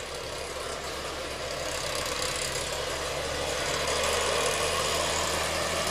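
Motorized backpack mist blower spraying pesticide: its small engine running steadily under a rushing blast of air, getting gradually louder.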